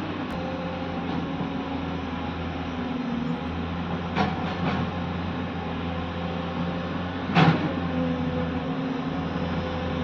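Excavator's diesel engine running steadily, with two light knocks about four seconds in and a louder knock about three seconds later.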